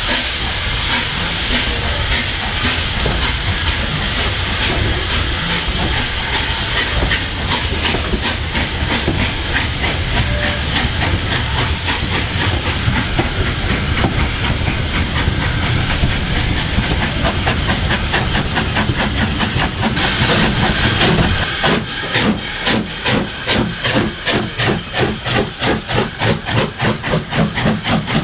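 Steam locomotive working a train away from a station, heard from a carriage close behind: a loud steady hiss of steam with a fast run of exhaust beats. About three-quarters of the way through the sound changes to a regular pulsing beat, two or three a second, as a steam-hauled train goes by.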